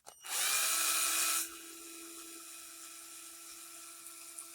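Small electric screwdriver whirring as it backs out the screws of a plastic RC differential case. A loud burst that rises in pitch for about a second, then a quieter steady whine.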